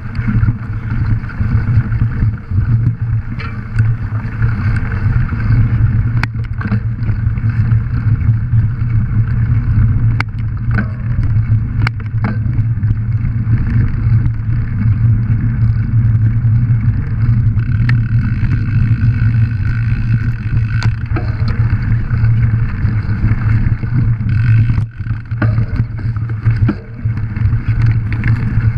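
Mountain bike rolling fast over a forest trail: a steady low rumble of tyres on dirt and wind on the action-camera microphone, with scattered sharp clicks and rattles of the bike over bumps.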